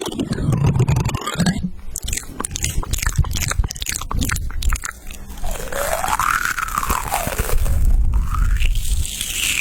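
Rapid, dense crunching for the first few seconds, then about halfway through, swooping sound effects that rise and fall in pitch over a low rumble.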